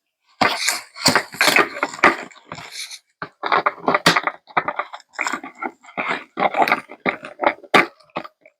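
Close handling of doll packaging: irregular rustling, scraping and clicking of plastic and cardboard as pieces are worked free.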